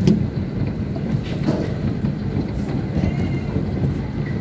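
Large hailstones pelting down on the ground and parked cars: a dense, steady clatter with a few sharper knocks.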